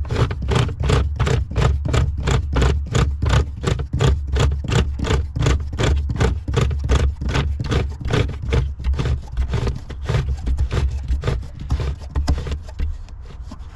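The cable winch that holds the spare wheel under a Renault Clio 4 being wound up with a crank tool, clicking evenly about four times a second as the wheel is drawn up against the car's underside, with a low rumble beneath. The clicks grow weaker near the end.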